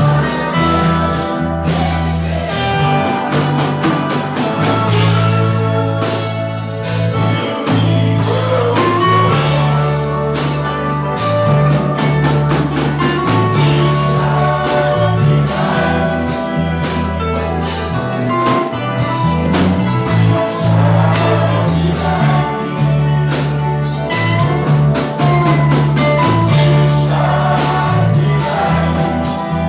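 Gospel music with singing over strummed guitar and a steady bass line.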